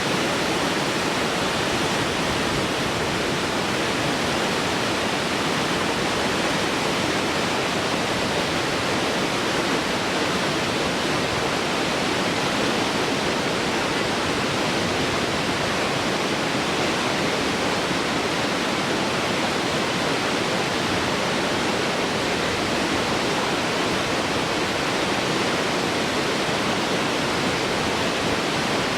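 Waterfall: water falling and crashing, a steady, even rush with no pauses.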